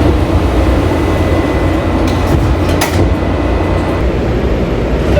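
Steady low rumble and noise of a Washington Metrorail car, with a single sharp knock about three seconds in.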